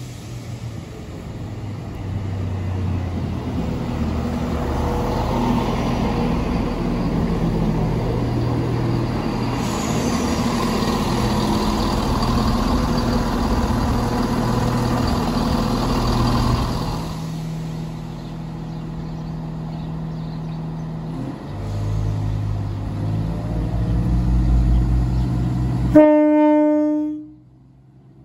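Class 170 Turbostar diesel multiple unit running along the platform, its diesel engines and wheels on the rails giving a steady rumble that settles to a lower, steadier engine note about two-thirds of the way through. Near the end its horn sounds one short, loud tone that cuts off after about a second.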